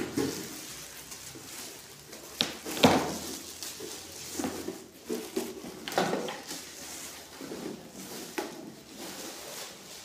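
Plastic polythene wrapping crinkling and rustling as it is peeled off a voltage stabilizer, with knocks from handling the unit's casing: the sharpest about three seconds in, more around six and eight seconds.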